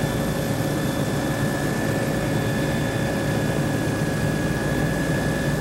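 Steady drone of a survey aircraft flying low and level at about 80 knots, heard from inside the cabin: a constant low hum with a few steady whining tones above it.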